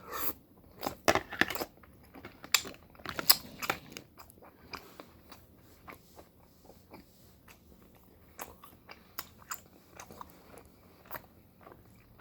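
A person biting and chewing food close to the microphone, with many short wet mouth clicks and crunches. They come thick and loud for the first four seconds, then sparser and fainter.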